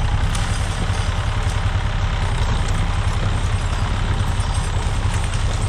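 John Deere 1640 tractor's three-cylinder diesel engine running steadily with an even low throb as the tractor moves off.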